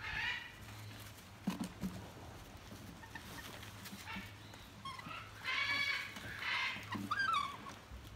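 Lion cubs giving several short, high-pitched bleating calls while playing, including a wavering squeal near the end, with a few soft knocks about a second and a half in.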